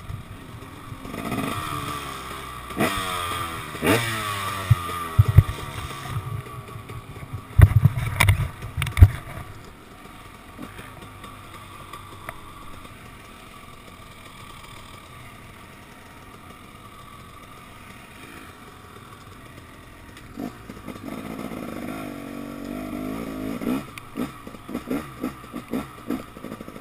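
KTM 250 XC-W two-stroke single-cylinder dirt bike engine revving up and down as it pulls away on dirt, with a few sharp knocks and clatter around the eighth to ninth second. It settles to quieter low-rev running through the middle, then revs up and down again near the end.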